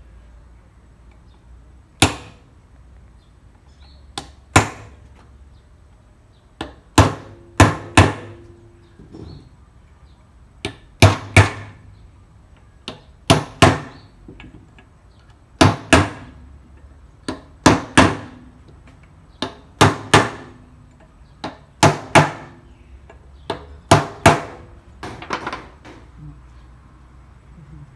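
Hammer striking a steel punch on the bolt ends of a flexible coupling drive gear, staking the bolts and nuts as a safety lock: repeated sharp metallic blows, often in quick pairs, some with a short ring.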